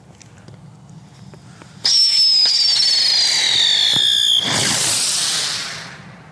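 Whistling ground-spinner firework (Röder Heulsuse): a loud whistle starts suddenly about two seconds in and slides slowly down in pitch as it spins. Partway through it switches to a hiss of silver sparks as the spinner lifts into the air, fading away before the end.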